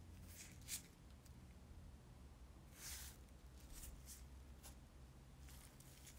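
Very faint handling noise: a few light ticks and a soft scuff as small metal lighter parts are picked up and set down on a wooden tabletop by hands in nitrile gloves, over a low steady hum.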